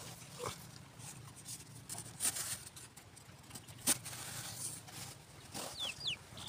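A small hand tool scraping and digging into dry, sandy soil, with loose earth scuffing and trickling in short, irregular strokes and one sharp knock about four seconds in.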